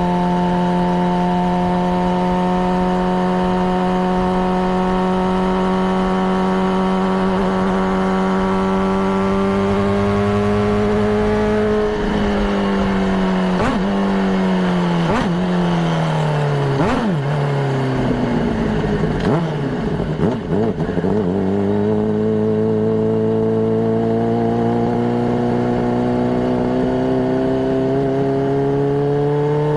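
Honda CBR600RR's inline-four engine running at steady, fairly high revs, its pitch climbing slowly. Through the middle the revs drop and pick back up several times in quick steps. Then it settles again and climbs gently.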